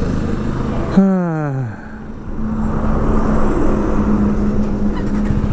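Motor vehicle engine and traffic noise. About a second in there is a short loud sound whose pitch falls over under a second, and from about two and a half seconds on there is a steady engine hum.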